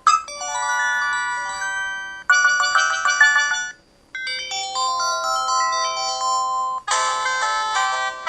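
A PH-S3500 mobile phone's built-in ringtones and effect sounds, played one after another. Short electronic melodies of steady tones follow one another, each a different clip. A new one starts about two seconds in, there is a brief break near four seconds, and two more follow, the last one brighter.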